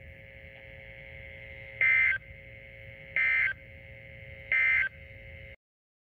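NOAA Weather Radio end-of-message data tones from a Reecom weather alert radio's speaker: three short buzzing digital bursts about a second and a half apart, over a faint steady hum and hiss. They mark the end of the Emergency Alert System warning. The sound cuts off suddenly near the end.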